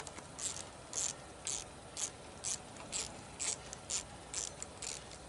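Hand socket ratchet clicking in steady, even strokes, about two a second, as a bolt is worked.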